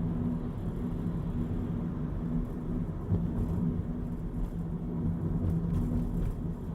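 Steady low rumble of a vehicle running, with a low droning hum that drops out briefly now and then.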